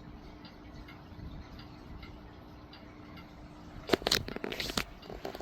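Vintage Lakewood Country Aire box fan with a Westinghouse motor running on low: a steady hum with a light ticking about twice a second. About four seconds in, a short burst of loud clatter and clicks covers it.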